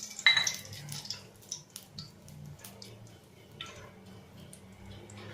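A metal clink against a pan just after the start, then scattered sharp pops and crackles of mustard seeds spluttering in hot oil for tempering.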